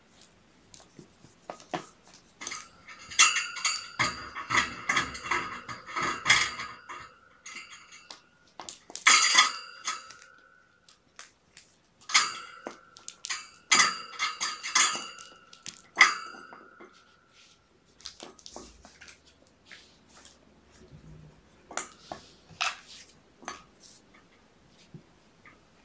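Light metallic clinking and jingling in three flurries of quick rattles, each leaving a brief ringing tone, then a few scattered lighter clicks.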